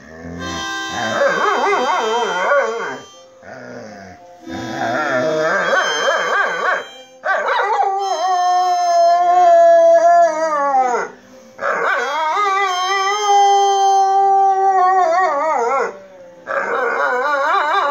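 A dog howling along to a harmonica. The harmonica plays in short wavering bursts at the start and near the end, and the dog gives two long, drawn-out howls in the middle that drop in pitch as they die away.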